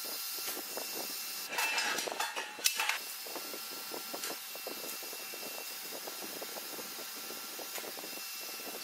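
TIG welding arc on stainless steel: a steady hiss with fine crackling. It grows louder for about a second and a half, starting about a second and a half in, and ends that stretch with a sharp click.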